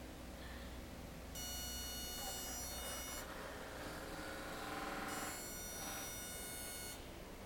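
Electrical buzz from a homemade plasma-tube therapy machine, pulsing on and off. It sounds twice, each time for about two seconds, with gaps of about two seconds between.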